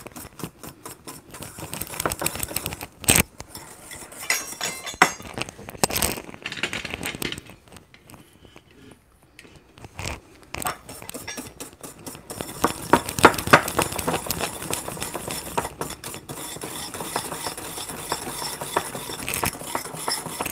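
Wire whisk beating sugar into a mixture in a small ceramic bowl, a fast run of metal clicks and scraping against the bowl. It stops for a couple of seconds partway through, then starts again and goes on quickly.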